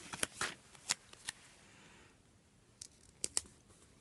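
Paper sticker sheets being handled: a planner sticker is peeled off its backing and pressed onto the planner page, making quiet crisp ticks and rustles, several in the first second or so and a quick pair near the end.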